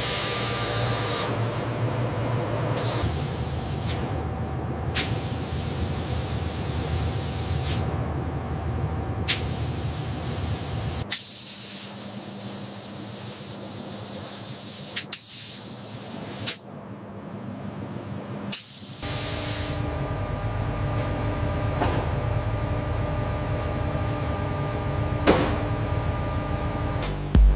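Steady hissing spray over a low machine hum, with several sharp clicks or knocks spread through. The low hum drops away for several seconds around the middle and then returns.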